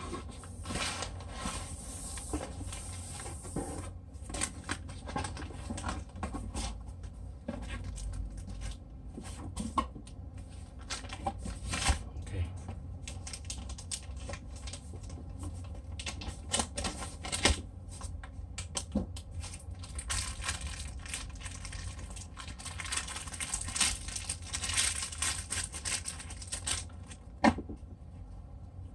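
Packaging being handled: cardboard box flaps and foam packing shifting, then plastic bags crinkling, with scattered light clicks and knocks. The crinkling is densest about three-quarters of the way through.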